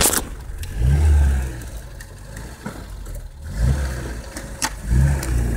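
A Lada 2107's engine revving up three times in short surges while the car works along a rutted muddy track, with a few knocks between the surges.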